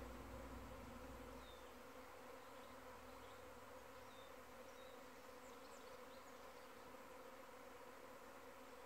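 Faint, steady buzzing hum of a large cloud of honey bees flying around the hives, which the beekeeper takes for a virgin queen's mating flight. A low rumble fades out in the first couple of seconds.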